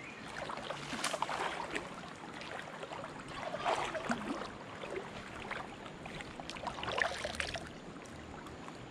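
River water running and splashing, with a few louder splashes about a second in, near the middle and around seven seconds in.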